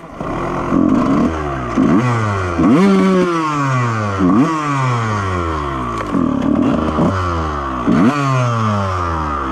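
Honda CR125 125cc single-cylinder two-stroke motocross engine on the move, revved in about half a dozen sharp throttle bursts, each quick rise in revs followed by a long falling-off.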